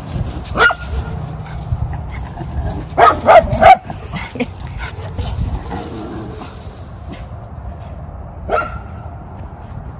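Small dog barking in short, high yips: one about half a second in, three in quick succession around three seconds in, and one more near the end.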